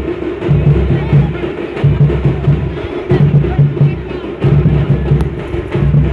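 Loud percussion-driven music with a heavy beat that repeats about every second and a bit, and many sharp drum strokes in between, over the noise of a crowd.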